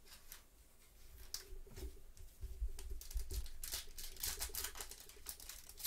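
Trading cards and a clear plastic card sleeve handled with gloved hands: light rustling at first, then from about three seconds in a quick run of clicks and rustles as cards are flicked through, with a few dull bumps.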